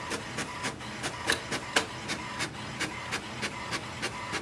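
HP Smart Tank 7001 inkjet printer printing a page: a steady run of quick mechanical clicks, about four to five a second, as the sheet feeds through.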